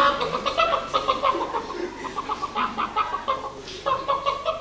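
Hen-like clucking in quick broken runs, a person's voice imitating a chicken, with a short pause just before the end.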